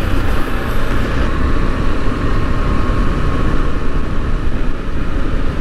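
KTM 390 Adventure's single-cylinder engine running steadily while riding, mixed with a steady rush of wind on the microphone.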